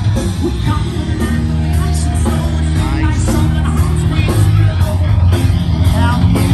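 Live rock band playing, with a singer's voice over the band.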